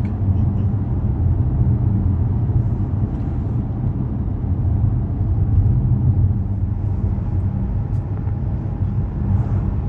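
A vehicle driving, heard from inside: a steady low rumble of engine and road noise.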